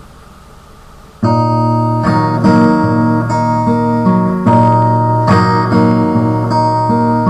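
Acoustic guitar strummed with chords, starting about a second in after a quiet moment. The strumming repeats a pattern of three strokes about every two seconds, the chords ringing between strokes.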